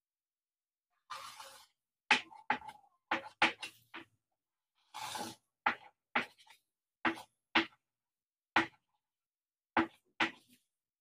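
Chalk on a chalkboard as lines and marks are drawn: about a dozen sharp taps and short strokes, with two longer strokes of about half a second, one about a second in and one about five seconds in.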